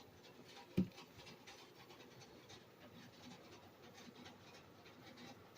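Faint scratching and rustling, with one soft knock about a second in.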